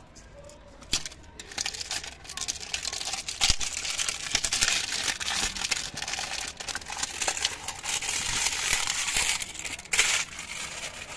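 Clear plastic shrink wrap being torn and peeled off a smartphone box, crinkling continuously from about a second in. Near the end it is crumpled in the hand with a brief loud crackle.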